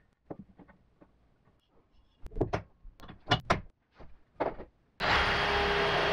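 Sharp clicks and knocks of metal locking clamps and plywood being handled and set on a table saw fence, several in a row. About five seconds in, a loud steady rushing noise starts suddenly.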